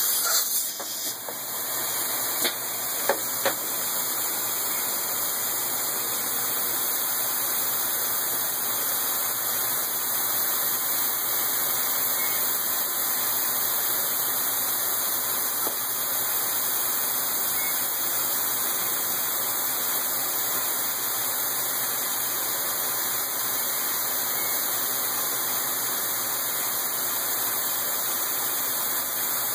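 Machine tool running steadily with an even, hissing mechanical noise and a few sharp clicks in the first few seconds.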